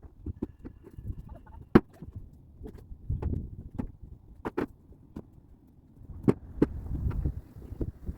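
Firewood being loaded by hand: irregular wooden knocks and clunks as logs land on one another, a few of them sharp, with low rumbling handling noise between.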